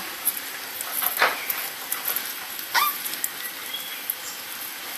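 A dog giving two brief whines, about a second apart near the start and the middle.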